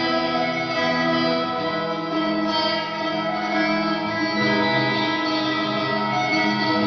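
Music: guitar playing held chords with an effects-laden sound.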